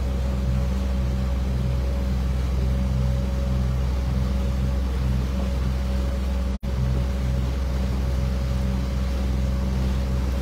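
Outboard motor running steadily, driving a small boat at speed, with a low even hum over the rush of the wake. The sound cuts out for an instant about six and a half seconds in.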